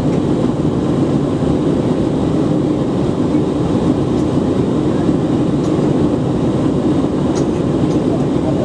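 Steady, loud drone of a jet airliner's engines and airflow heard from inside the passenger cabin in flight, with a couple of faint ticks near the end.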